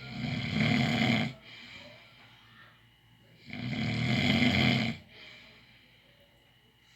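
Snoring: two loud snores, each lasting about a second and a half and about three and a half seconds apart, with quieter breathing between them.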